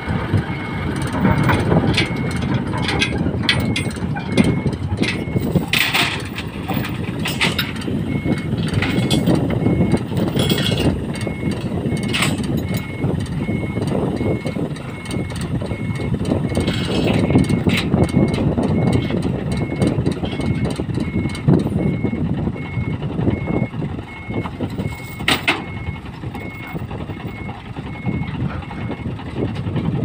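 Heavy diesel engine idling steadily, with scattered metallic clanks from chains and fittings being handled and a repeating short high-pitched beep.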